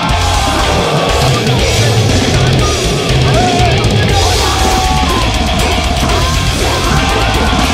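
Loud heavy metal music with guitars and drums, playing without a break.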